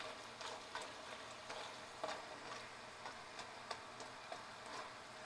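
Sliced green plantains deep-frying in hot oil: a faint sizzle with irregular small crackles and ticks, while a metal slotted spatula stirs the slices. The cook takes this crackling as the sign that the chips are nearly ready.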